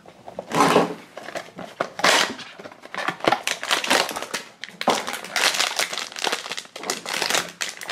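Crinkling and crumpling of blind-box packaging: a holographic foil bag, with a cardboard blind box, is handled and worked open in irregular rustling bursts.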